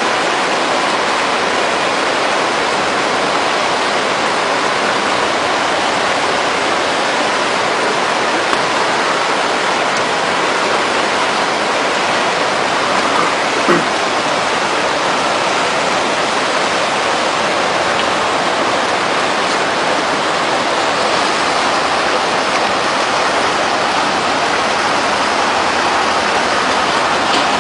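Typhoon storm noise at the coast: a steady, unbroken rush of wind and water, with one short blip about halfway through.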